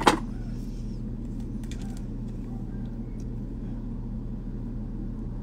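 Steady low hum of room noise, with a short click at the start and a few faint clicks about two seconds in.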